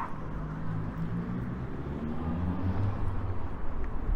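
Street traffic: a motor vehicle's engine running with a low, steady hum, its pitch rising slightly about halfway through.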